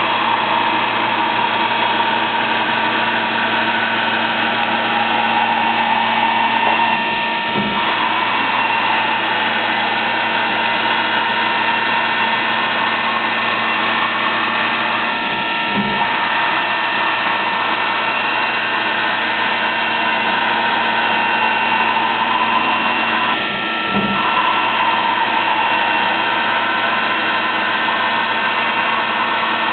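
Fadal CNC mill running a repeating machining cycle: a steady spindle and cutting sound, broken by a short change in the pattern three times, about eight seconds apart.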